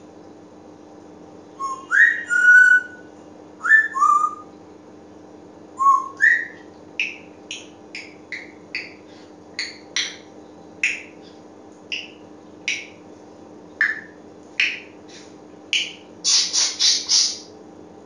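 African grey parrot whistling: a few rising whistled notes, then a long string of short, sharp calls, one or two a second, ending in a quick run of four louder calls.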